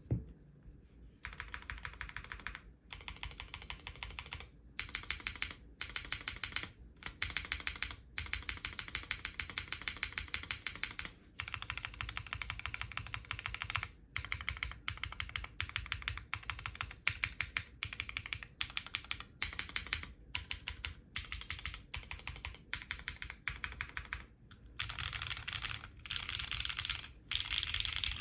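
Fast typing on a Kohaku R2 custom mechanical keyboard with hand-lubed and filmed BCP linear switches, an ABS plate, GMK keycaps and no foam: rapid keystrokes in runs, broken by short pauses every few seconds. The typing starts about a second in.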